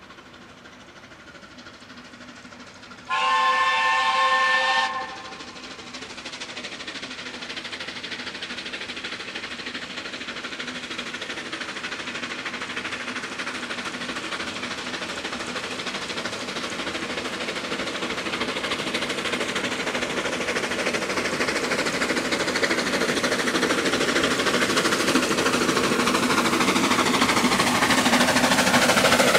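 Narrow-gauge C2-class steam locomotive blowing one whistle blast of about two seconds, a chord of several tones, about three seconds in. Then the train approaches, its running sound growing steadily louder as it nears.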